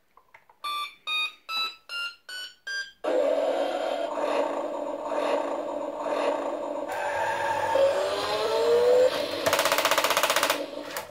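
Battery-powered Hot Wheels Formula Fuelers Skyforce jet-launcher toy truck starting up. It plays six short electronic beeps, each a step higher, then a steady electronic engine sound over its running motor for about eight seconds, with a brief rising whine and then a fast clicking buzz just before it cuts off.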